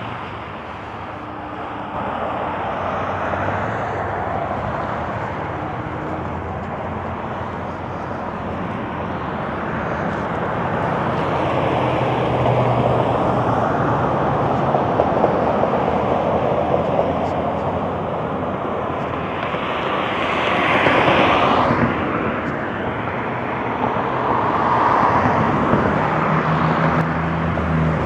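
Road traffic passing by: a steady run of vehicle noise that swells and fades as cars go past, with the loudest pass about twenty seconds in.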